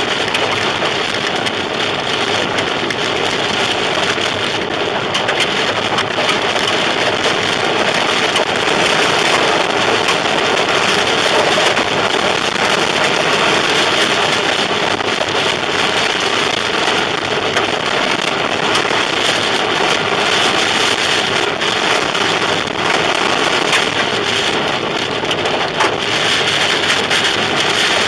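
Heard from inside a car driving through a tornado's outer winds: a loud, steady roar of wind and rain against the car, with scattered sharp hits on the body.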